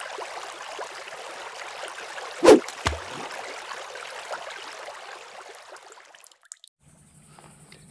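Intro sound effect of rushing, trickling water with two sharp droplet-like hits about two and a half and three seconds in, the first the loudest; the water sound fades out around six seconds. A faint, steady high insect chirring follows near the end.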